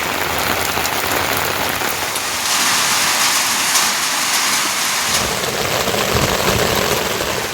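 Rain falling steadily, a dense hiss that grows brighter about two and a half seconds in; a low rumble joins from about five seconds in.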